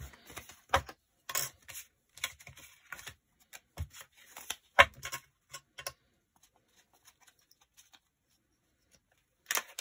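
Paper and card tags being handled and tapped together on a cutting mat: short rustles and taps over the first six seconds, the loudest about five seconds in, and one more burst near the end.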